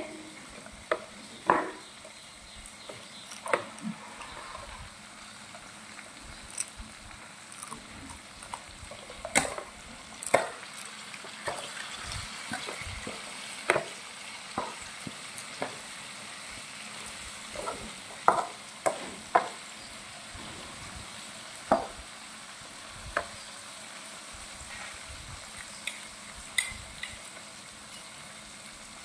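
Food sizzling steadily as it fries in a pan, with a utensil knocking and scraping against the pan at irregular intervals as it is stirred.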